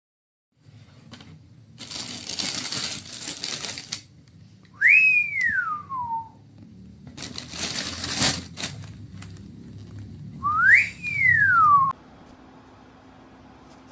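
Crinkling twice, each time for about two seconds, alternating with two whistles. Each whistle is a quick rise followed by a longer downward slide.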